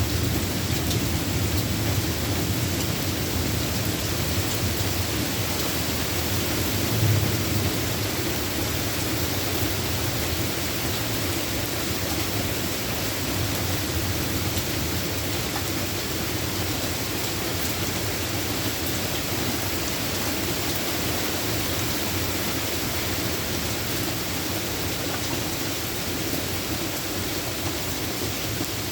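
Steady rain falling, a continuous even hiss, with a low thunder rumble underneath and a brief low thump about seven seconds in.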